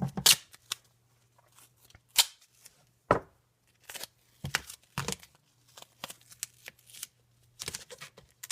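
Duct tape being worked by hand: short rips and crackles at irregular intervals as strips are pulled off the roll, torn off and pressed onto cardboard.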